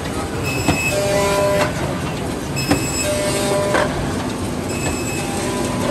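Wohlenberg Quickbinder perfect binder running: a steady mechanical clatter with a knock about once a second and short whining tones that come and go several times.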